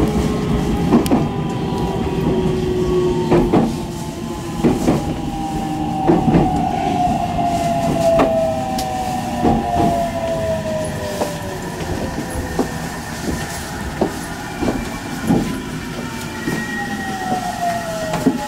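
Electric train running on the line, its wheels clicking over rail joints at uneven intervals over a steady rumble. A motor whine falls slowly in pitch through the middle, and another falling whine comes near the end.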